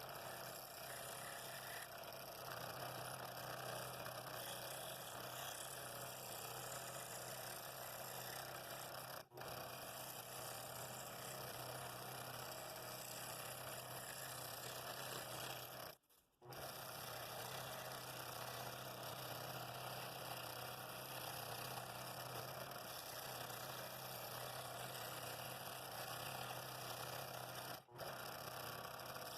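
Scroll saw running steadily while cutting wood, a constant low hum under an even buzzing noise. The sound breaks off for a moment three times, once about a third of the way in, once about halfway and once near the end.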